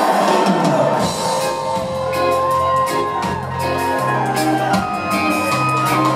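Live music from a concert stage, heard from within the audience in a large hall: a steady drum beat under changing bass notes and held melody lines.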